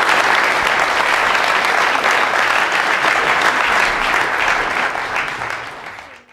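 Audience applauding in a hall with echo, fading out near the end.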